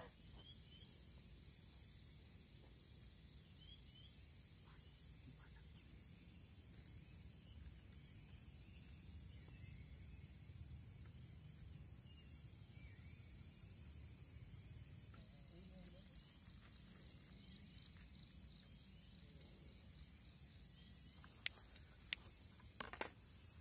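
Insects, likely crickets, chirping in a faint, steady, rapidly pulsing high trill that fades for a while and returns, over a low rumble. A few sharp clicks come near the end.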